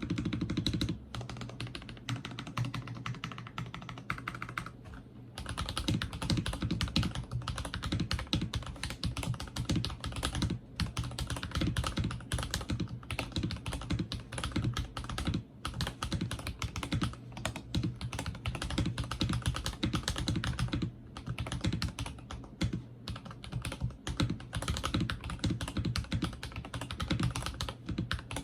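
Steady typing on a tape-modded NovelKeys NK87 Entry Edition mechanical keyboard: rapid, continuous keystrokes, with a brief pause about five seconds in.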